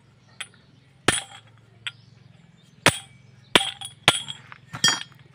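Sharp metallic clinks and knocks, five or six of them, with a brief ringing tail: tools and a pipe extension striking the metal housing as the bolts of a Yanmar harvester's hydrostatic transmission (HST) are worked loose for disassembly.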